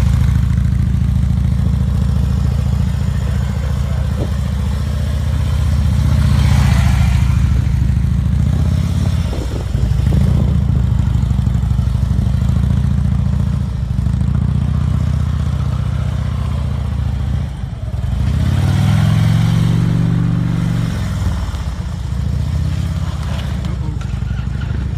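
Large touring motorcycle's engine running at low speed through tight, slow turns, with small throttle changes. About three-quarters of the way through it revs up briefly and settles back down.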